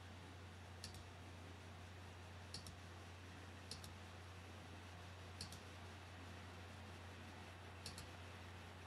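Computer mouse buttons clicking faintly about five times, some as quick double clicks, a second or two apart, over a low steady hum.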